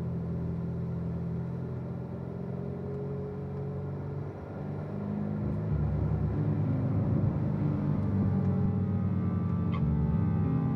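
Slow ambient background music of sustained deep notes that change in steps, growing louder about halfway through.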